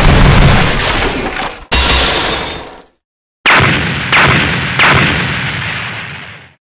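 Sound-effect gunfire: a loud continuous burst that breaks off about 1.7 seconds in, followed by a second blast that fades away. After a short pause come three heavy shots about two-thirds of a second apart, each ringing out before dying away.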